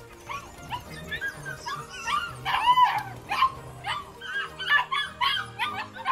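A flock of helmeted guineafowl calling: a rapid string of short, high, yelping calls that grows louder about two seconds in, over background music.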